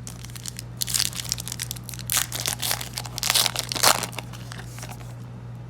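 Crinkling and tearing of a foil Yu-Gi-Oh! booster pack wrapper being handled and opened, in a run of crackly rustles from about a second in until near the end.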